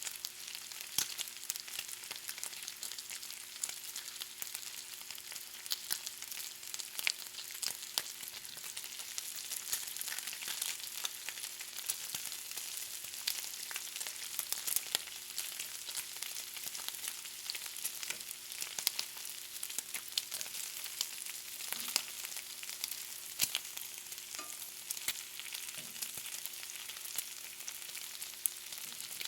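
Bacon frying: a steady sizzle with frequent sharp pops and crackles.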